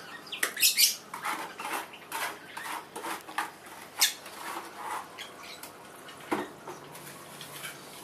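A steel plastering trowel scraping and tapping on wet cement mortar as a pond wall is plastered by hand, in short irregular strokes with a few sharp clicks, the loudest about a second in and another about four seconds in.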